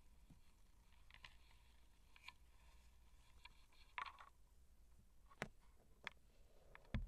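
Near silence, broken by a handful of faint scratches and small clicks from young Siamese kittens wrestling and pawing at each other on a blanket, with a soft thump right at the end.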